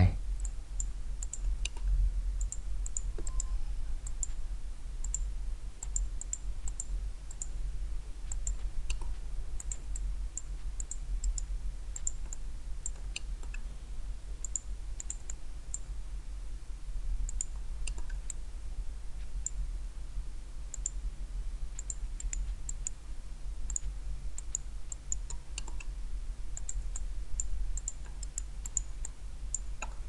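Computer mouse clicking, many quick sharp clicks at irregular intervals, over a steady low hum.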